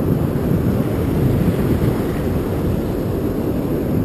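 Wind buffeting the microphone in a steady low rumble, over the wash of breaking surf.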